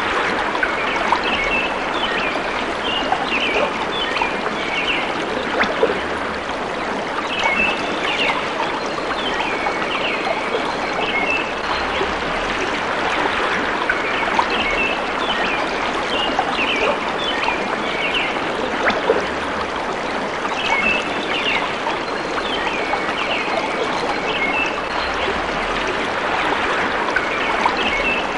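Steady rush of a flowing stream, with birds chirping in short clusters that recur every few seconds.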